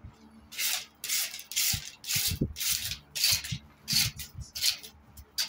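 A broom swishing across a brick floor in repeated sweeping strokes, about two a second, with a few soft thumps in between.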